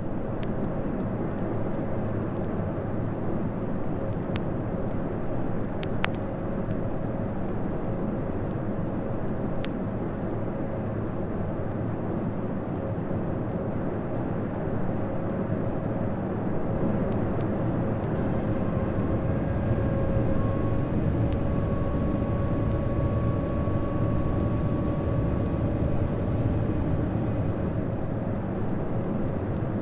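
Boeing 747 cabin noise on final approach: the steady rumble of the jet engines and airflow with a constant whine. About twenty seconds in, higher engine whine tones join in and the noise grows slightly louder.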